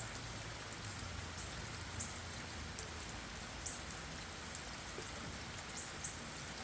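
Steady rain falling on leaves and the ground, with a handful of louder single drops tapping sharply now and then.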